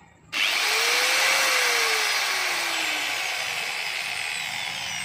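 Electric angle grinder switched on about a third of a second in and spinning freely at full speed, with a glue-stiffened cloth disc mounted in place of a cutting wheel. The free-spin is a test of whether the cloth frays. Its whine slowly fades and falls in pitch toward the end.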